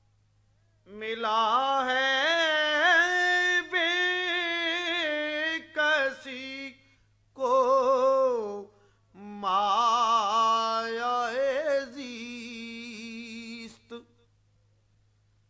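A solo male voice sings an Urdu naat in long, ornamented held notes that waver in pitch. There are three phrases with short breaths between them.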